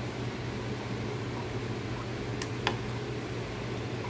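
Steady low hum with a fan-like hiss, and a few light clicks just past halfway as a metal spatula knocks against a glass measuring cup of hot liquid soft plastic while the colour is stirred in.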